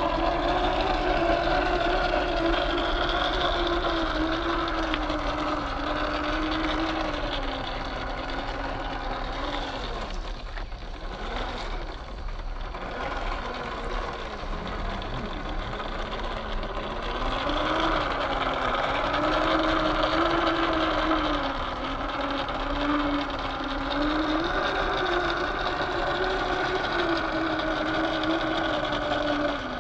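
Electric motor and geartrain of a 1/10-scale RC crawler whining, the pitch wavering up and down with the throttle. About ten seconds in it slows, drops low for a few seconds, then picks up again.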